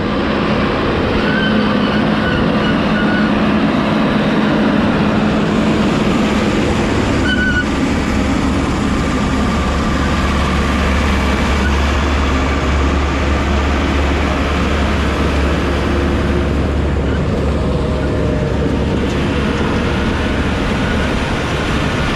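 Heavy diesel earthmoving machine running and working, with a steady engine drone that deepens and strengthens for several seconds in the middle, and a few brief high metallic squeaks.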